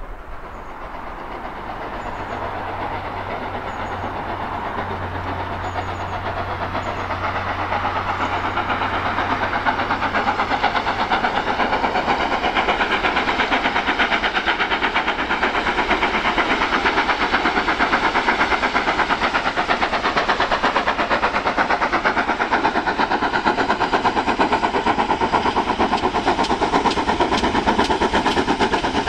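GWR 'Hall' class 4-6-0 steam locomotive 4936 Kinlet Hall working hard at the head of a train, a fast run of exhaust beats. It grows louder over the first dozen seconds as the engine approaches, then holds steady.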